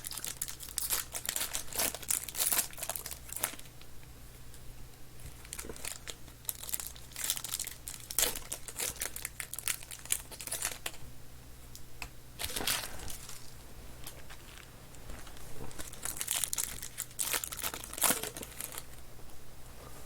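Foil trading-card pack wrappers crinkling and tearing in irregular bursts as packs are ripped open and handled.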